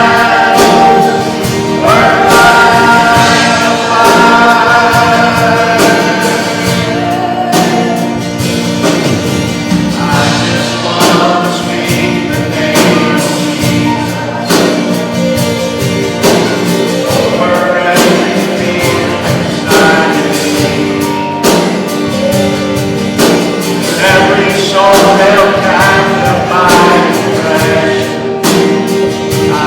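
Group of voices singing a worship song with instrumental accompaniment and a steady beat.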